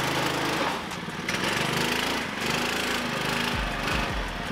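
Go kart's small single-cylinder gas engine running as the kart drives up a steel ramp into a trailer, easing off briefly about a second in.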